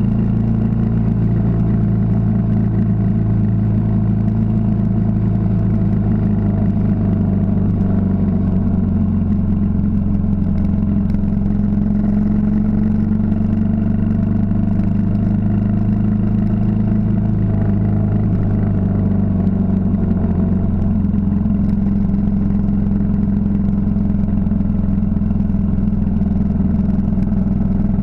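Yamaha XT 600's air-cooled single-cylinder four-stroke engine running at a steady cruising pace under way, with only small rises and falls in pitch.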